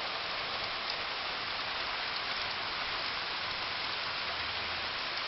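Steady rain falling, an even hiss of drops with no thunder or other sudden sound.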